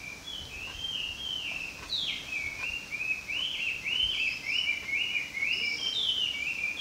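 A songbird singing in the woods: a long, unbroken run of quick, repeated clear notes, each sliding downward in pitch.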